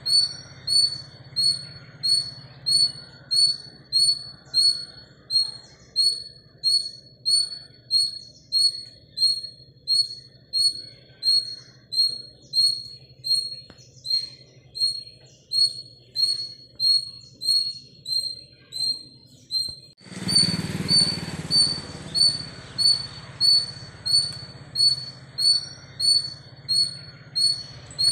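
A small bird calling over and over with a high, clipped chirp, about three calls every two seconds, over a low steady rumble. About two-thirds of the way through, a rush of noise swells and fades over a couple of seconds.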